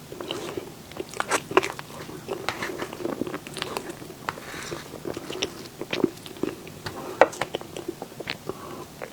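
Close-miked mouth sounds of a person biting and chewing soft dessert, with many irregular wet, sticky smacks and clicks.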